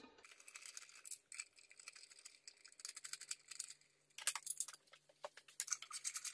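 Light metallic clicking and clinking of a hand ratchet and loose 10 mm bolts as the long bolts are taken out of the intake plenum, in irregular runs with a busier stretch in the second half.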